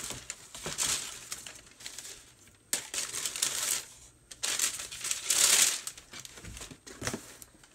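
Shoebox tissue paper rustling and crinkling in several swells as a sneaker is lifted out of it, with light handling of the cardboard box.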